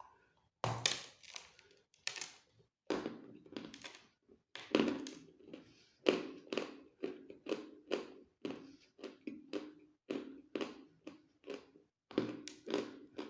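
Close-up crunching of dry, hard chalk being bitten and chewed, about two crisp crunches a second, with a brief pause near the end.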